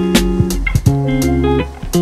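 Background music led by plucked guitar, with notes changing about every half second over a regular beat.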